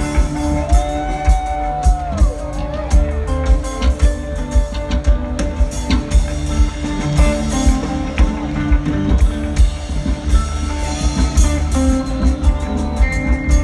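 A live rock band playing: an electric guitar lead with a bent note about a second in, over bass and a steady drum beat, recorded from the audience.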